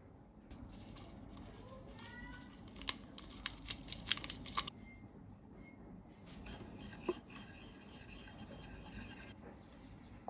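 A small plastic spoon tapping and scraping against an enamel pot while glucono-delta-lactone coagulant is stirred into a little water: a quick run of sharp clicks a few seconds in, then one more click later.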